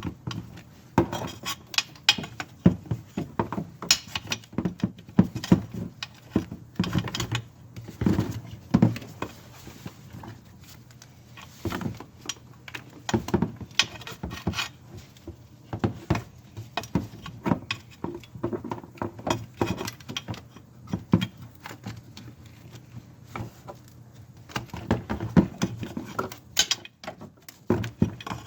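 Wrench and metal parts clinking and knocking irregularly as a Duramax's stock fuel filter is worked loose.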